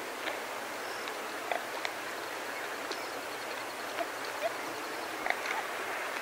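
Warthogs feeding on short grass: scattered soft clicks and short snuffling sounds of grazing over a steady hiss of wind in longer grass. Small birds call high above, with a rapid run of high ticks from about halfway.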